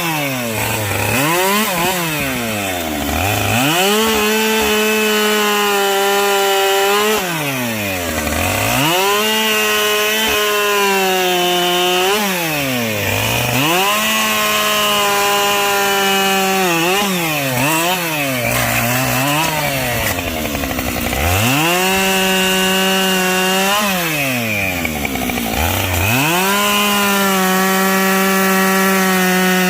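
Two-stroke chainsaw bucking logs. It is held at full throttle through each cut, then the revs fall away toward idle and climb back again, over and over.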